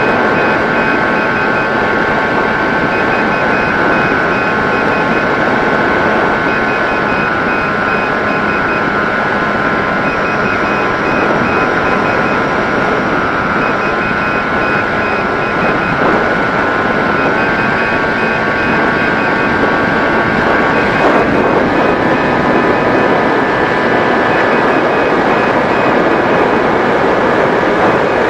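Mini Drak FPV RC plane in flight: a steady whine from its electric motor and propeller, over rushing air noise. The pitch steps up and down a little with throttle, most noticeably around 14, 17 and 21 seconds in.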